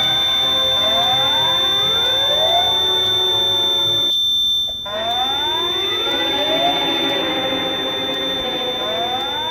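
Fire alarm sounders sweeping a repeating rising whoop tone, several out of step with one another, over a steady high-pitched tone. The sweeps cut out briefly about four seconds in, then start again.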